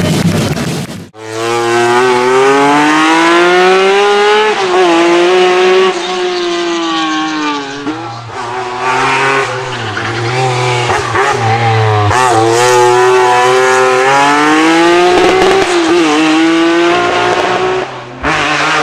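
Racing car engine accelerating hard through the gears: the engine note climbs in pitch, drops sharply at each shift, and climbs again, over and over. It starts about a second in, after a brief cut.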